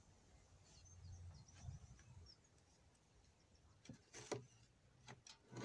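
Near silence: faint room tone with a few soft knocks in the second half and faint high chirps early on.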